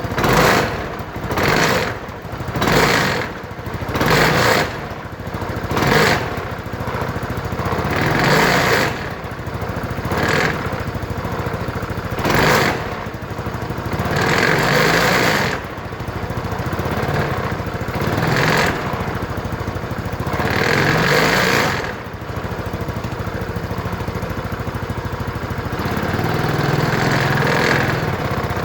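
Yamaha X-Max 250 scooter's single-cylinder engine revved again and again: quick throttle blips about every second and a half at first, then longer rev-ups a few seconds apart. It carries a strange noise that the owner places in the belt drive or behind it, because the engine sounds fine when the brake is held.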